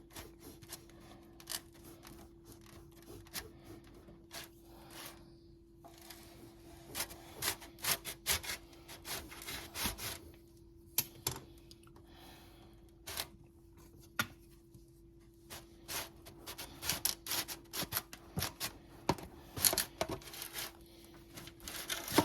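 Serrated bread knife sawing through slider buns, irregular scraping strokes and clicks.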